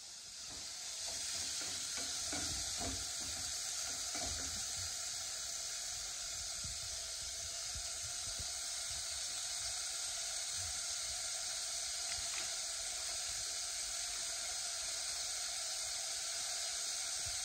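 Onions and other chopped vegetables frying in hot desi ghee in a kadhai: a steady sizzle, with a few soft knocks in the first few seconds.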